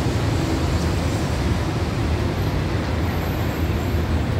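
Steady road traffic noise: a constant low rumble under an even hiss, with no single event standing out.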